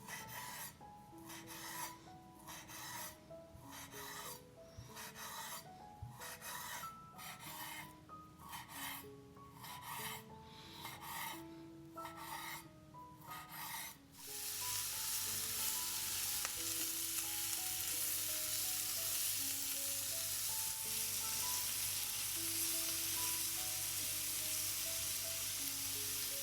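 A run of rasping hand strokes, about one and a half a second, then about fourteen seconds in a steady sizzle of food frying in hot oil starts suddenly and carries on. Soft background music with slow plain notes underneath.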